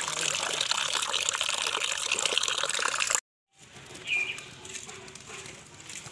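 Water splashing and sloshing in a metal bowl as hands stir and rub a batch of Ceylon olives to wash them. It cuts off sharply about three seconds in, leaving a much quieter stretch with a brief high chirp.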